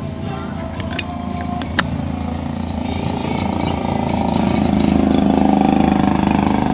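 A motor vehicle's engine on the road outside, getting louder from about halfway through as it draws near and staying loud to the end. A couple of sharp clicks come in the first two seconds.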